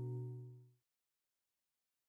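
The last held chord of the background music fading out and ending within the first second, then silence.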